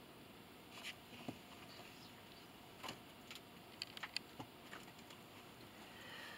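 Books being handled: a few faint taps and rustles over near silence.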